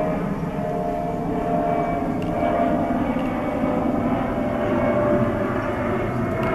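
Twin-engine jet airliner passing low overhead: a steady jet-engine rumble with a whine held on top.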